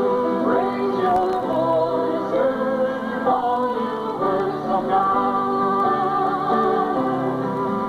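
Hymn music with singing: held, slightly wavering sung notes that change every second or so.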